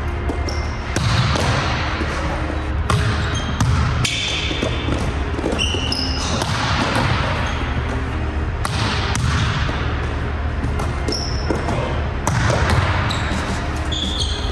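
Volleyball being passed, set and hit back and forth: sharp slaps of hands and forearms on the ball every second or two, with short sneaker squeaks on the court floor.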